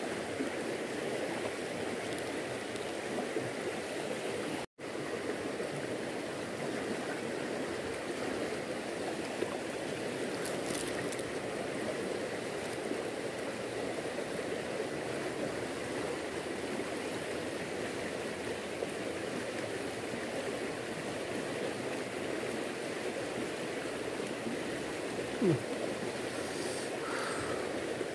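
Fast-flowing river current rushing steadily, with a brief total dropout about five seconds in and a small click near the end.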